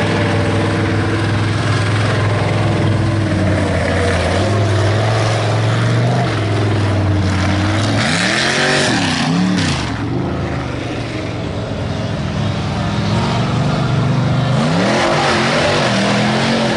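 Ford Ranger mega mud truck's engine running loud and steady, then revving up and down twice in quick succession about halfway through, and revving up again near the end as it pushes through the mud.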